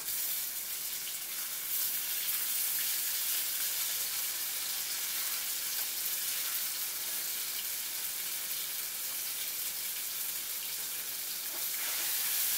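Stuffed brinjals sizzling as they fry in hot oil in a pan, stirred with a slotted spatula. The sizzle is steady and grows a little louder near the end.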